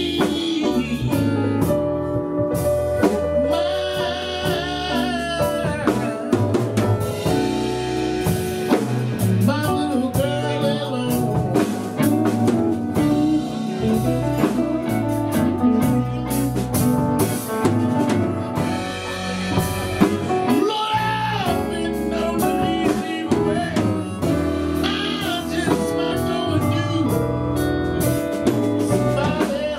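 Live blues band playing, with drum kit and guitar and wavering, bending melody lines over a steady beat.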